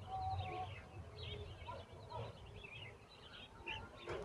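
Nestling birds begging, a busy run of short high cheeps over a low background rumble, with a sharp click near the end.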